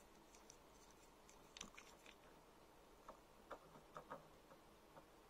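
Faint, scattered clicks and light scrapes of a small screwdriver driving a screw through a 3D-printed plastic U-joint and square tube, onto the flat of the shaft inside.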